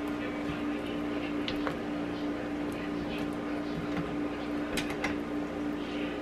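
A spatula scraping batter down the sides of a stainless-steel stand-mixer bowl while the mixer is switched off, making scattered scrapes and small taps over a steady low hum.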